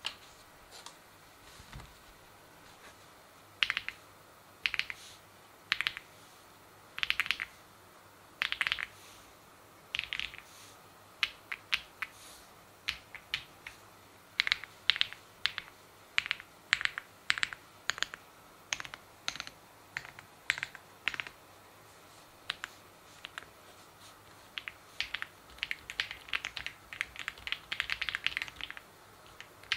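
Keystrokes on an acrylic-cased OwLab Spring mechanical keyboard: short clusters of sharp key clicks about a second apart at first, growing denser into fast, continuous typing near the end.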